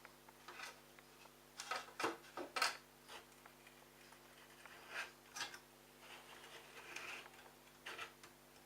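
Scattered light clicks, taps and scrapes of plastic parts being handled, loudest about two to three seconds in, over a faint steady electrical hum.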